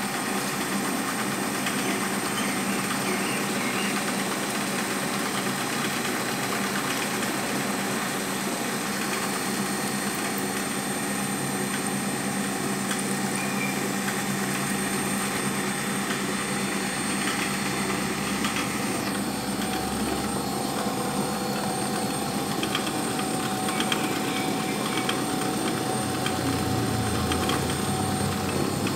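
Vertical milling machine running steadily, its spindle cutter cutting into a metal plate and throwing chips.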